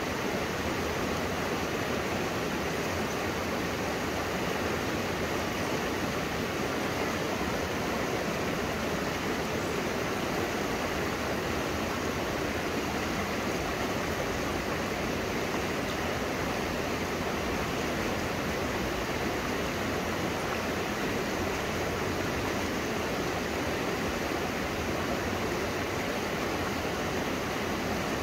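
Shallow river flowing over and around boulders in small rapids: a steady, unbroken rushing of water.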